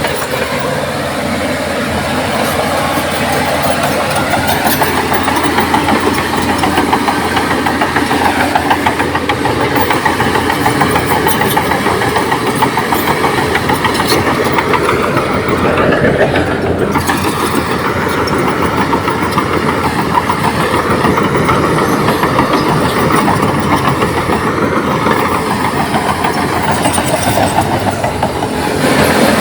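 Komatsu D58P bulldozer's diesel engine running steadily under load. Its note dips and recovers about halfway through and rises briefly near the end.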